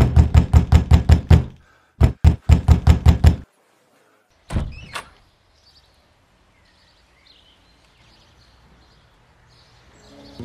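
Rapid, loud knocking on a wooden door, about five knocks a second, in two runs separated by a short pause. About four and a half seconds in comes a single thud as the door is opened.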